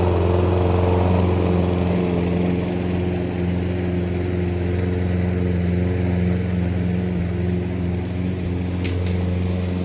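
Lawn mower's Briggs & Stratton engine running steadily at an even speed.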